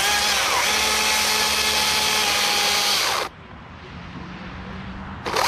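Two-stroke chainsaw running at full throttle as it cuts into a dead fir trunk. About three seconds in it drops back to idle, then revs up again near the end.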